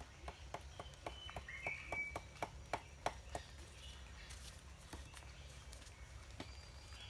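A hand tool tapping on masonry blocks: a quick run of about a dozen sharp knocks, three or four a second, growing louder, then a couple of single taps. Birds chirp faintly.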